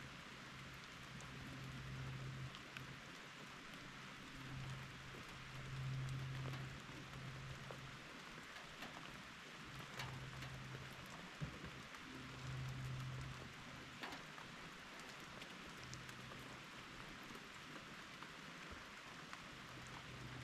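Steady rain falling, a soft even hiss with scattered drop ticks. A low hum swells and fades several times underneath, loudest about six seconds in.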